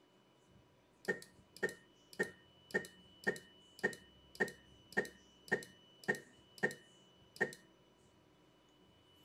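Twelve sharp clicks, evenly spaced a little more than half a second apart, each with a short ringing tone.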